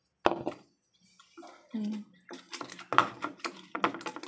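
Wooden spoon and spatula stirring thick batter in a ceramic bowl, tapping and scraping against the bowl. A single sharp knock comes just after the start, then a quiet second, then quick irregular taps several a second from about two seconds in.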